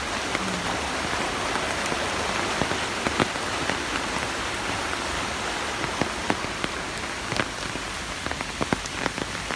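Steady rain falling, with sharp taps of individual drops striking something close by, the taps coming more often in the second half.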